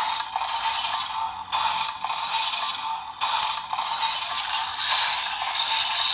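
Music and electronic sound effects from a Kamen Rider Saber DX toy belt's small speaker, thin and tinny with no bass, breaking off briefly about a second and a half in and again about three seconds in.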